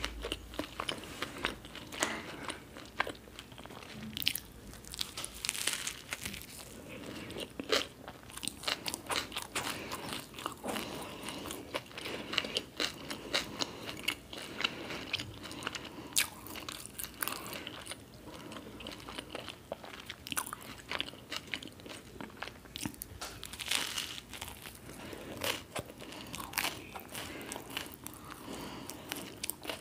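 Close-miked chewing of a grilled toasted-bread sandwich filled with crispy fried onion bhajiya, with many irregular sharp crunches.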